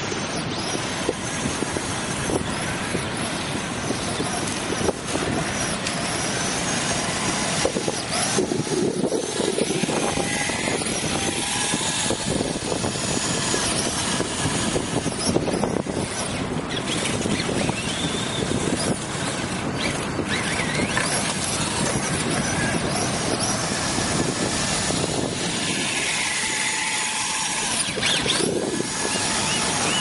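Electric motor and drivetrain of a radio-controlled Kyosho Blizzard EV tracked snowcat (stock sealed motor) whining, rising and falling in pitch as it is driven, over a steady rushing background noise.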